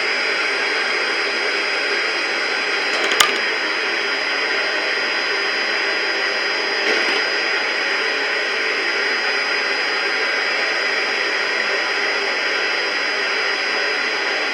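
Steady hiss of radio static from a weather radio receiver between broadcasts, with a thin steady high tone running through it and a single sharp click about three seconds in.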